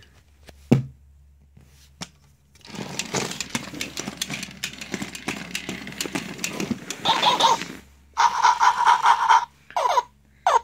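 Tekno robotic Dalmatian toy walking, its motor and plastic gears clattering with rapid clicking for about five seconds. Near the end come short bursts of electronic yapping sound effects from its speaker.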